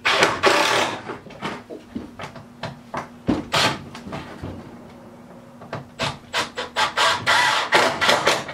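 Quick scraping strokes against wood, coming in clusters with short pauses, over a faint steady hum.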